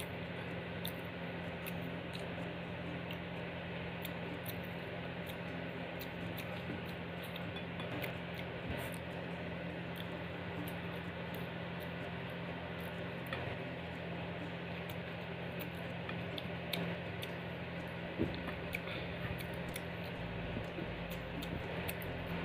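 Close-up eating sounds: chewing and mouth clicks, with light taps of fingers and food on a plate and a leaf being torn, over a steady low hum.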